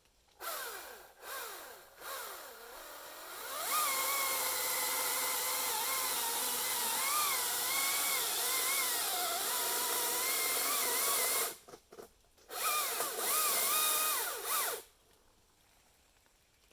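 Chainsaw revving up, then held at high speed cutting wood, its pitch wavering under load. It drops off about 11 seconds in, runs again in a short burst, and stops about 15 seconds in.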